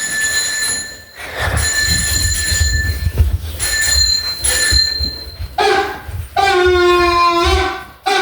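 A recorded sound effect played from a speaker. A high bell-like ringing tone comes in several stretches over a low rumble, then from about five and a half seconds in it gives way to long held tones, each falling slightly in pitch.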